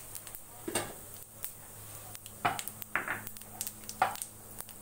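Mustard seeds, urad dal and cumin spluttering in hot oil in a steel kadai: scattered sharp pops and crackles, some much louder than others.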